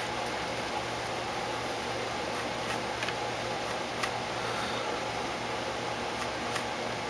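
Steady room noise: a low hum and hiss, with a few faint light ticks around the middle and near the end.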